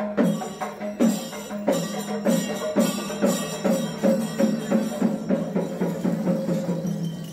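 Percussion music: drums struck in a rhythm, the strokes quickening to about four a second in the middle of the passage.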